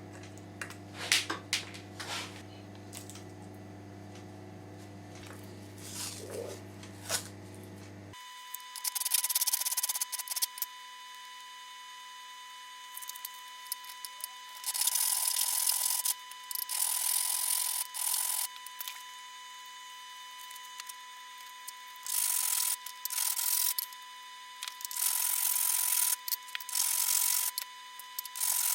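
Hand abrasion of a workpiece: repeated bursts of rasping strokes, each lasting about a second, with short pauses between. The first few seconds hold only scattered clicks and knocks over a low hum.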